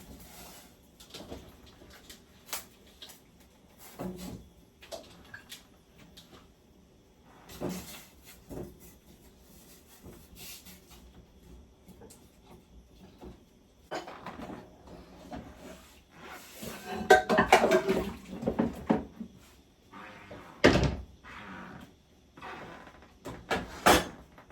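Pots and kitchen utensils being handled: scattered knocks and clinks, a busier run of clattering past the middle, and one heavy thump near the end, as the food is moved into a bigger pot.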